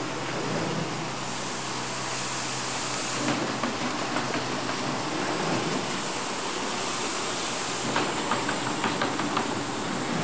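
RJE Magellan LD automatic corrugated boxmaker running: a steady mechanical hum with a high hiss that comes and goes, and a few light clicks near the end.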